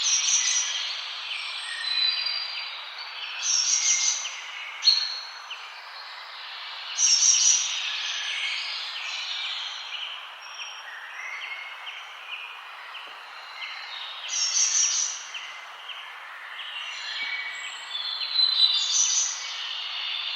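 Several birds chirping and singing over a steady background hiss, with a bright high trill coming back every few seconds.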